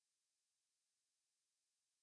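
Near silence: no sound beyond a very faint steady hiss.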